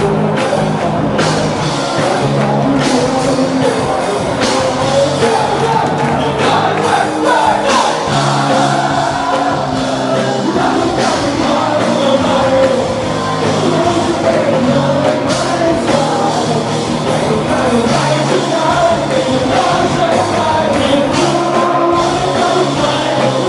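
Live band playing a song, a male lead singer on a handheld microphone over electric bass and keyboard.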